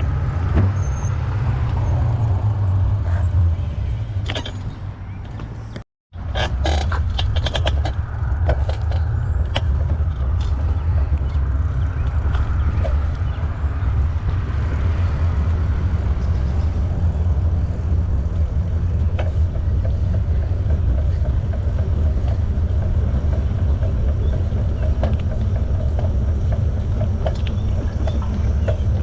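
Wind rumbling on the microphone of a camera carried on a moving bicycle, a steady low roar with a light hiss above it. Scattered clicks and knocks come from about six to nine seconds in, just after the sound drops out for a moment.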